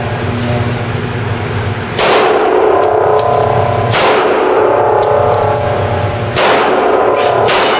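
Smith & Wesson M&P 9mm pistol firing frangible rounds at steel targets: several shots about two seconds apart, each followed by the clang and lingering ring of a struck steel plate.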